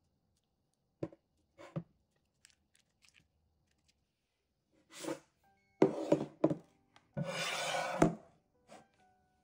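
A spatula scraping brownie batter out of a bowl and spreading it in a loaf pan: a few light taps, then a run of scrapes, a longer rub of about a second, and a single knock near the end.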